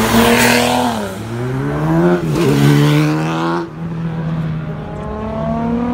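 BMW 3 Series coupe accelerating hard past, its engine revving up, dropping at a gear change about a second in, and climbing again before cutting off sharply about three and a half seconds in. A quieter engine continues after, its pitch slowly rising.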